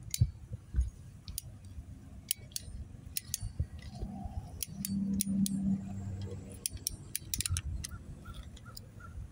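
Scattered sharp metallic clicks and scrapes as a hand screwdriver drives a screw into the red metal duct clamp of a plastic fiber-blowing Y block. A low steady hum comes in briefly around the middle.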